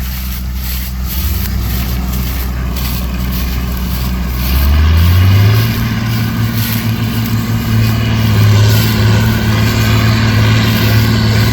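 Combine harvester's diesel engine running steadily. About five seconds in its pitch rises, and it holds there at the higher speed.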